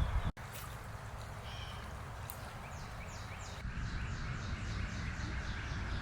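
Small bird singing over a steady outdoor hiss: a short call about a second and a half in, then a fast trill of short falling notes, about five a second, from about three seconds in until near the end.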